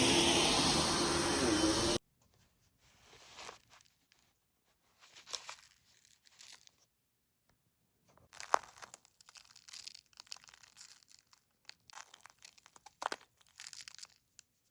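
Vacuum cleaner running, then switched off and cutting out abruptly about two seconds in. After that, scattered quiet crinkling and rustling handling sounds with a few sharp clicks.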